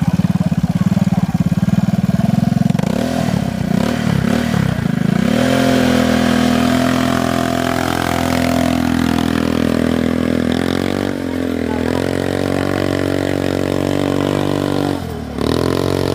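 ATV engine running, revved up and down a few times, then held at steady revs whose pitch drifts slowly. Near the end the sound briefly drops away as the throttle comes off, then picks up again.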